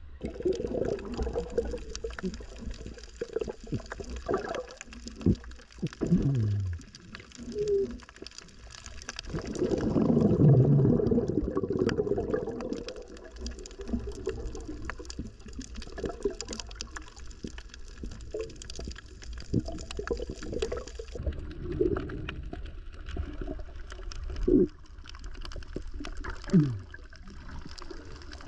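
Underwater sound of a diver among reef rocks: gurgling air bubbles, with a louder burst about ten seconds in and a couple of short falling glides, over a steady low rumble and scattered crackling clicks.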